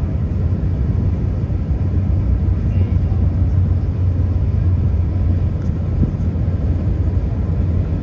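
Lobo Marinho passenger ferry's diesel engines running in a steady low rumble as the ship manoeuvres slowly in to berth.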